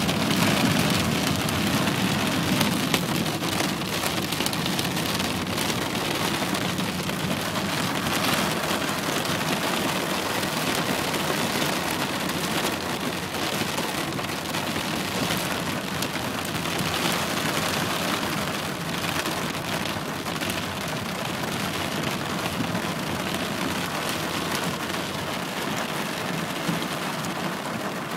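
Heavy downpour: dense, steady rain hitting surfaces, with a low rumble in the first few seconds that fades away.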